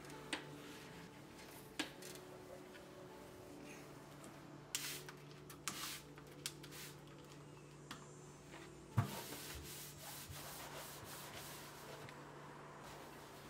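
A sponge scrubbing the enamel inside of an oven in short, irregular rubbing strokes, with a few sharp knocks, the loudest about nine seconds in.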